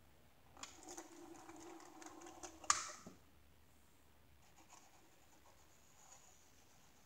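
HOn30 model locomotive and boxcar moving along the small layout's track: about two and a half seconds of scratchy clicking with a faint steady hum, ending in one sharp click. A few faint clicks follow.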